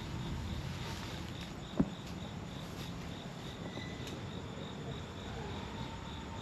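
Insects chirping in a steady pulsing rhythm, about five pulses a second, with a single sharp thump a little under two seconds in.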